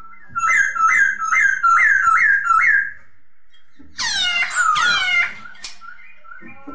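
Poksay (laughingthrush) singing: a run of about six rising whistled notes, roughly two a second, then after a pause two loud downward-sweeping calls.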